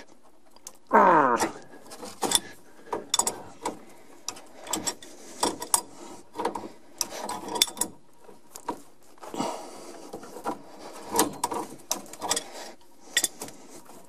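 A wrench working the nut of a 3/8-inch water supply hose on a shut-off valve: irregular metal clicks and scrapes as the fitting is turned loose, with a short, loud squeak about a second in.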